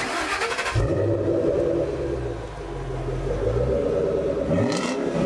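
Ford Mustang Shelby GT500's supercharged 5.4-litre V8 starting up: a brief burst of cranking, then the engine catches under a second in and settles into a steady, loud idle. Near the end the revs dip and then rise.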